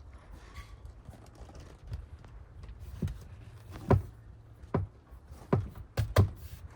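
Irregular knocks and clicks, a handful of sharp ones in the second half, over a steady low rumble.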